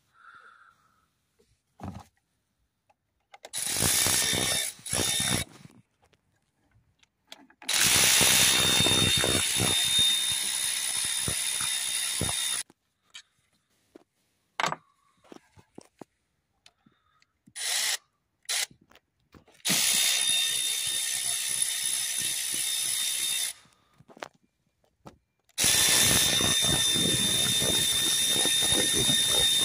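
Cordless power tool with a socket on an extension bar spinning bolts out, run in about five bursts of one to five seconds, each with a steady high whine.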